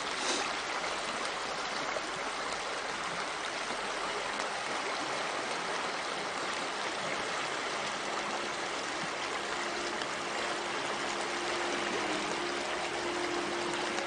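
A river's flowing water rushing steadily. Faint held musical tones come in over the second half.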